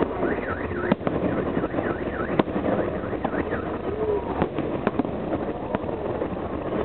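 Fireworks salute: sharp bangs of shells bursting at irregular intervals over a steady wash of crowd and outdoor noise. Through the first half, a high wavering tone rises and falls rapidly again and again.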